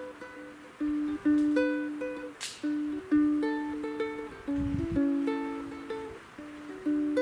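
Solo ukulele played fingerstyle: single plucked notes picked one after another in a melody, each ringing and fading.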